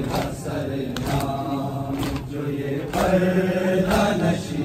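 A crowd of mourners chanting a noha refrain together while beating their chests in matam, the open-hand slaps falling roughly once a second over the held, droning voices.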